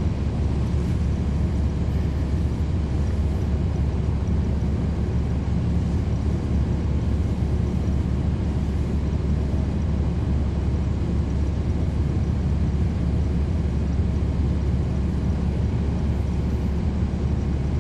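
Cummins ISL9 diesel engine of a NABI 40-SFW transit bus running steadily, a deep even rumble heard from the rear seats right by the engine.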